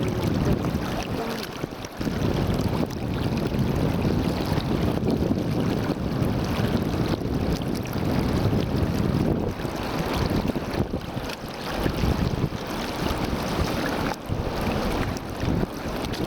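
Shallow, fast-running stream water rushing and splashing as it is waded barefoot, with wind buffeting the microphone.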